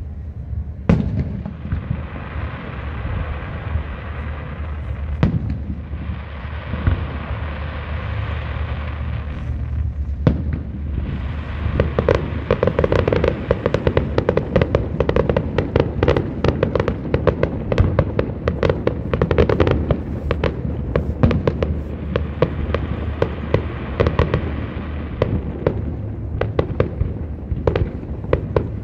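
Fireworks display: scattered bangs over a crackling haze, breaking about twelve seconds in into a dense, rapid barrage of bangs and crackles that runs on to the end.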